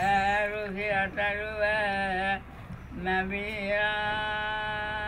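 A very old man chanting a Sinhala verse (kavi) in long, drawn-out held notes, with a short breath pause about two and a half seconds in.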